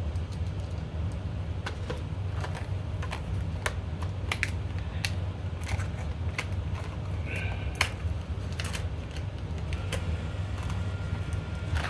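Scattered small metallic clicks and clinks of a washer and bolt being fitted by hand onto a Jeep hood latch, over a steady low hum.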